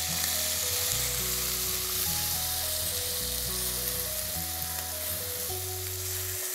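Ground onion paste sizzling in hot oil in a kadai while a wooden spatula stirs it through the tempering. Background music with a steady melody and bass plays underneath.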